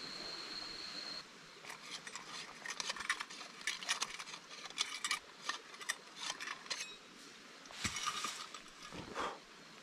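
A steady hiss with a high thin whine cuts off about a second in. Then comes a run of light, irregular clicks and clinks of small hard objects being handled, a brief rustle and a soft thump near the end.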